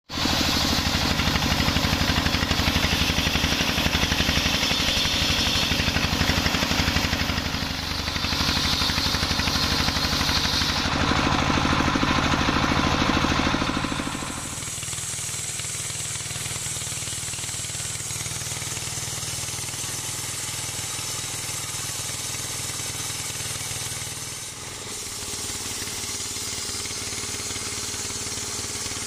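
Single-cylinder stationary diesel engine belt-driving a homemade table circular saw, the blade ripping through coconut wood with a loud hissing cut over a steady chugging engine. About halfway through the sound changes abruptly to the engine and spinning blade running more quietly, with a brief dip in level near the end.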